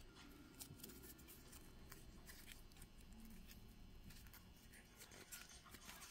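Very faint handling sounds: scattered small clicks and soft rustles as a satin fabric rose, wire and floral tape are worked by hand.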